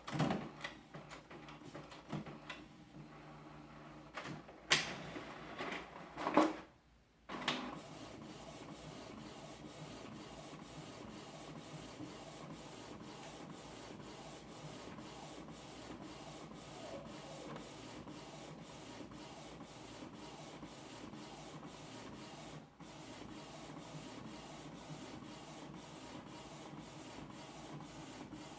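Canon TS6220 inkjet printer printing a full-page photo on glossy paper. A few louder mechanical knocks come in the first several seconds, then a steady, even rhythm of print-head passes, about two a second. The slow pace is typical of a full letter-size photo print.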